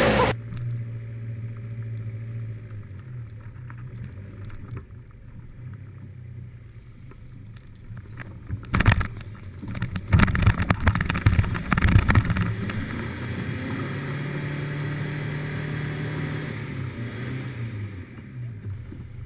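A 4x4's engine running at low speed, heard from a camera on its bonnet as it drives a rough dirt track. A cluster of sharp knocks and clatter comes from about nine to twelve seconds in, and the engine note rises and then falls again near the end.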